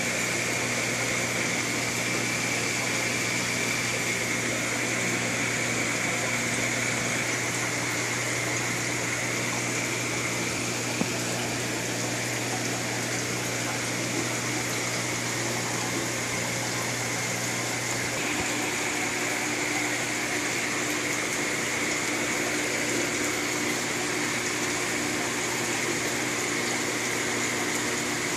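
Aquarium filtration running: a steady rush of moving water with the even hum of pumps. A further low hum joins about two-thirds of the way through.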